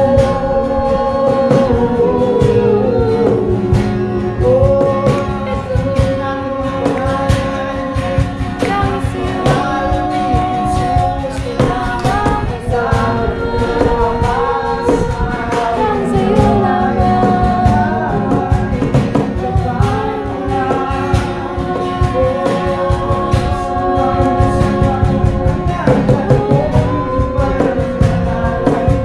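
Christian praise and worship music: a Tagalog worship song with singing over guitar and a steady drum beat.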